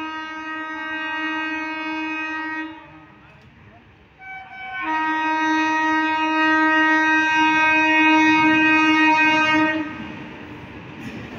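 Rajdhani Express electric locomotive sounding its horn in two long, steady blasts, the first about three seconds and the second, louder one about five seconds. Near the end the rumble of the approaching train's wheels rises.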